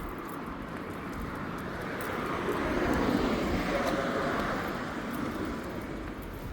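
A vehicle passing by on the road, getting louder to a peak about three seconds in and then fading away.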